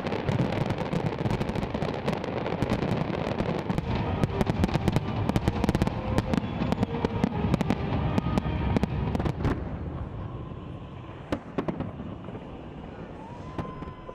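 Fireworks display: a dense barrage of bangs and crackle over a low rumble, thinning after about ten seconds to scattered, separate bangs.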